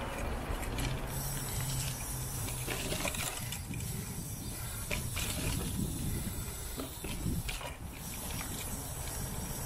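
Mountain bike ridden over a dirt trail: tyres rolling and the bike rattling over bumps, with the rear hub's freewheel ratcheting while coasting and a steady hiss.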